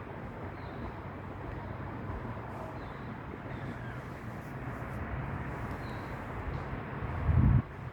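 Wind rumbling on the microphone, with one louder gust about seven seconds in.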